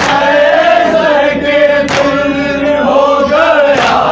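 Men chanting a Shia noha lament in long, drawn-out sung notes, with a sharp hand strike on the chest (matam) three times, about two seconds apart, keeping the beat of the mourning.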